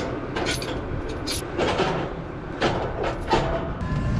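Tractor engine running steadily, with several short clanking rattles over it.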